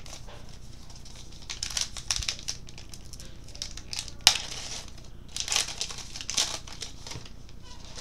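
Baseball card pack wrappers being torn open and crinkled by hand in irregular bursts, with one sharp snap about four seconds in.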